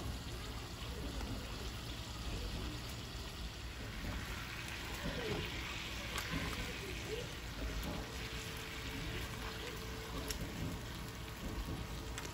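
Marinated lamb pieces frying in oil in an earthenware tagine: a steady sizzle, with a few clicks of metal tongs turning the meat.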